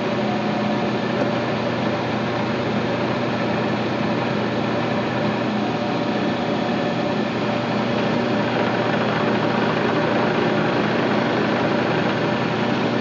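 CNC mill spindle running steadily with a polishing tool working the outside edges of nail clipper jaws: an even machine hum with a hiss over it.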